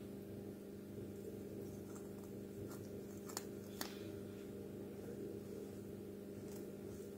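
Machete blade cutting at a wooden branch: a few sharp clicks, most of them between about three and four seconds in, over a steady low hum.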